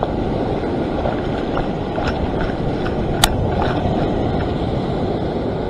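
Ocean surf washing over a rock ledge: a steady rushing noise, with a single sharp click about three seconds in.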